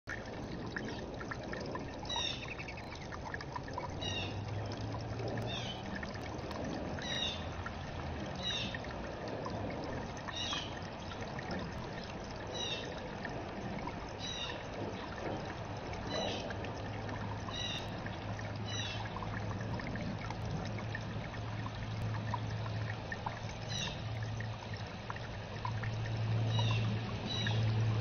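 Small bird-bath waterfall trickling steadily over stones. A bird's short high chirps repeat every second or two, and a low steady hum joins a few seconds in.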